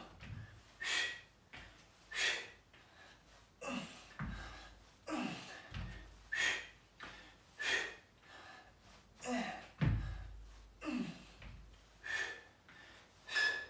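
A man breathing hard in short, sharp exhalations about once a second while exercising. A few dull thumps of bare feet landing on an exercise mat come through, around four, six and ten seconds in.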